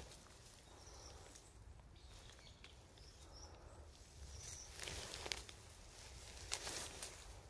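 Kittens climbing a shrub, rustling its leaves and branches in short bursts, loudest about five seconds in and again near the end, over faint outdoor background noise.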